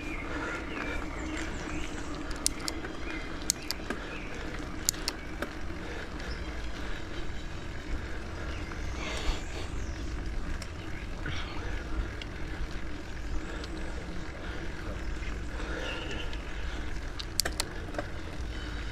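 Mountain bike climbing a steep hill: steady wind rumble on the microphone over tyre and drivetrain noise, with scattered sharp clicks.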